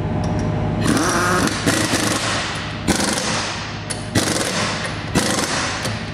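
Impact wrench firing in short hammering bursts about once a second, running lug nuts onto a wheel hub.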